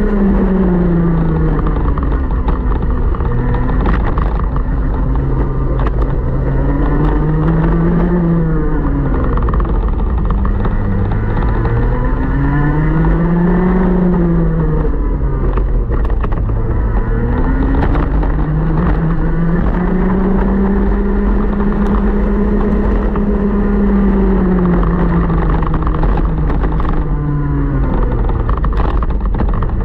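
125cc TaG two-stroke kart engine heard onboard at racing speed, its pitch climbing for several seconds as it accelerates down each straight and dropping sharply as it slows for each corner, about five times.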